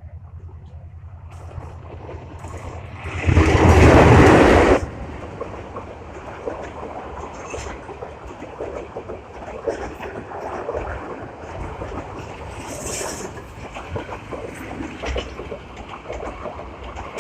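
Train rolling past on the rails, a steady rumble with irregular clicking of wheels over the track. A loud rushing blast lasts about a second and a half a few seconds in.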